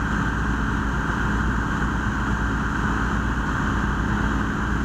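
Steady low drone of fire apparatus engines running at the scene, mixed with the constant rush of hose streams.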